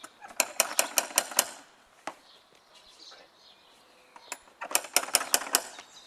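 Brass door knocker rapped quickly on a front door: a run of about six sharp metallic knocks, then after a pause of about three seconds a second run of about five.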